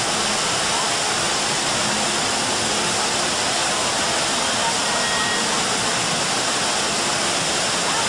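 Man-made waterfall cascading down rock ledges: a steady, even rush of falling water.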